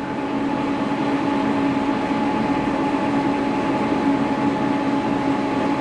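Horizontal milling machine running steadily with its spindle at low speed, about 200 rpm: a steady hum with several held tones from the drive.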